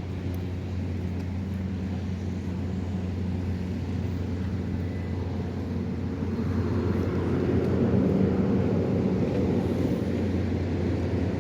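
Low, steady engine drone of a passing boat. It swells into a louder rumble from about six seconds in and peaks a couple of seconds later.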